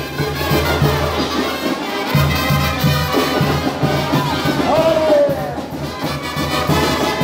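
Brass band music playing, with brass instruments over held low bass notes that change about two seconds in.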